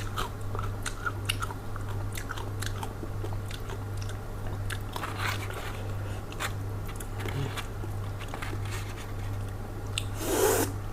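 Close-miked chewing of crunchy food: a stream of small crisp crunches, denser in the first few seconds, with a brief louder rush near the end. A steady low hum runs underneath.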